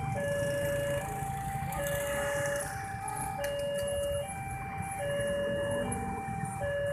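Railway level-crossing warning alarm sounding, an electronic two-tone signal that alternates evenly between a lower and a higher tone, each held just under a second. Under it runs the low rumble of motorcycle engines.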